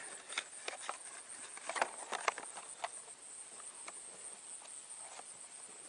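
Faint, irregular clicks and small knocks, a few a second and unevenly spaced, over a steady high hiss.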